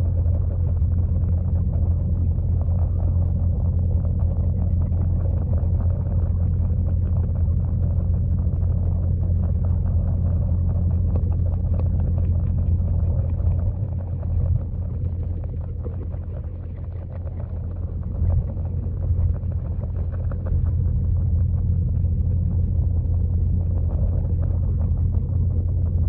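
Steady low rumble of a pond waterfall heard underwater through a GoPro's waterproof housing, dipping a little about two-thirds of the way through.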